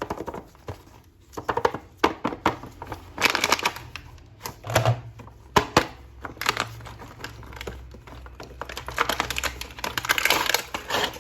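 Plastic packaging crinkling and rustling in irregular bursts, with sharp clicks, as a toy action figure is unwrapped.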